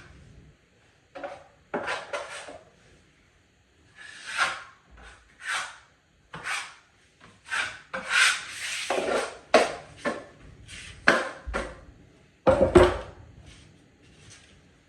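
Drywall taping knife scraping wet joint compound over paper tape, in a string of separate strokes with short pauses between them, the loudest and heaviest stroke near the end.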